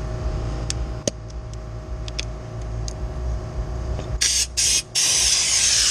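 Pressure washer stopping and starting: a low steady hum and a few clicks while the wand is off, then about four seconds in the spray comes on in two short hissing bursts before spraying steadily.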